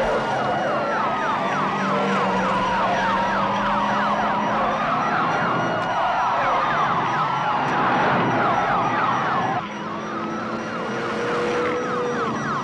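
Emergency vehicle siren wailing, its pitch rising and falling slowly every few seconds, with a rapid repeating sweep layered over it and a steady low hum beneath. The sound drops a little in level about nine and a half seconds in.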